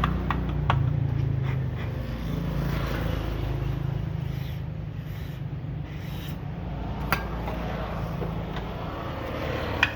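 A steady low mechanical hum, like an electric motor running, with a few sharp clicks near the start and one about seven seconds in.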